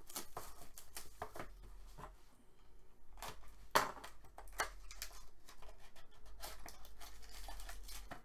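Plastic wrap being cut and torn off an Upper Deck SP Game Used hockey card box, then the cardboard box being opened and its contents slid out. There is crinkling and rustling with many small clicks, and one sharp click just before four seconds in.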